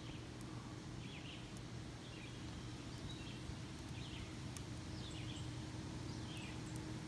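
A bird calling over and over, a short falling note about once a second, over a steady low hum.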